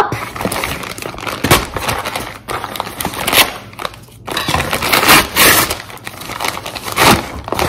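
A paper mailer envelope being torn open by hand: a run of paper crinkling with several sharp rips.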